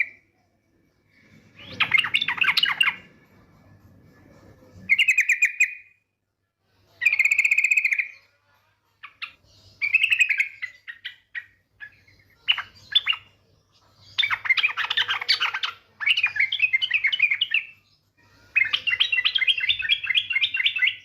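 Female yellow-vented bulbul (trucukan) giving its rapid chattering 'ngetir' call in repeated bursts of a second or two, with short pauses between. The call is used as a lure to set male bulbuls singing.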